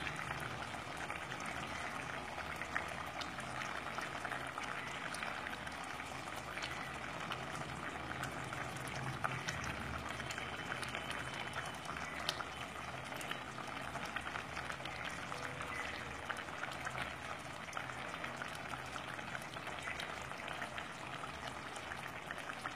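Thick tomato chutney simmering in a pan, with a steady stream of small bubbles popping and crackling.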